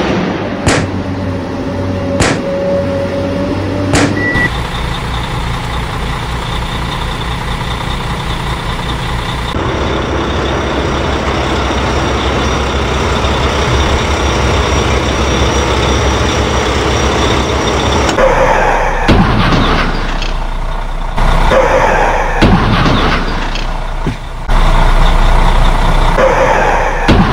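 Heavy truck and excavator engine noise, running steadily and changing abruptly every several seconds. Three sharp clicks come in the first four seconds, and revving swells repeat in the last third.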